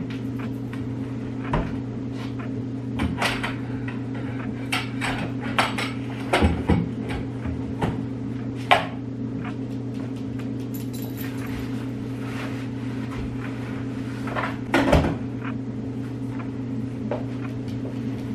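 Things being handled and shifted in a coat closet: irregular knocks, clicks and thumps, a few close together, over a steady low hum.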